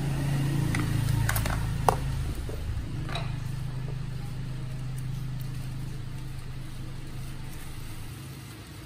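A steady low engine-like hum that fades away near the end, with a few light clicks and taps in the first few seconds, the sharpest about two seconds in.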